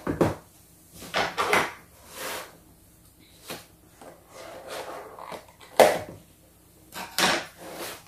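Cardboard toy box being opened and its card insert slid out by hand: a series of short scrapes and rustles of card, the sharpest about six seconds in.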